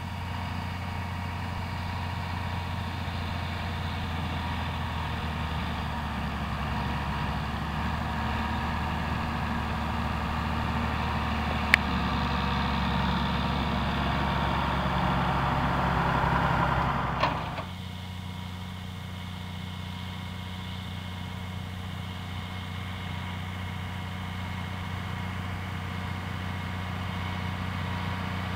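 John Deere 6900 tractor's six-cylinder diesel engine running steadily under load while pulling a corn planter, growing louder as it comes close by. There is a single sharp click a little before midway. About two-thirds through, the sound drops abruptly to a quieter, distant engine drone.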